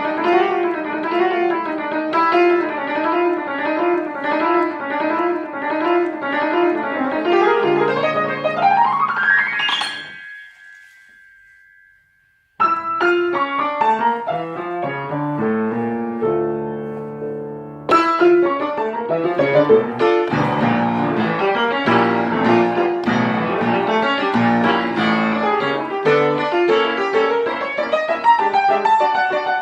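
Background piano music: fast rolling figures, then a rising run that ends on a held note and fades out; after a short silence a new piano piece starts.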